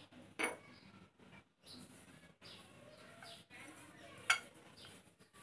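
A hand rubbing a dry flour and milk-powder mix in a ceramic bowl, working the ghee in, with a soft rustling. Two sharp clinks against the bowl, about half a second in and about four seconds in, the second the louder.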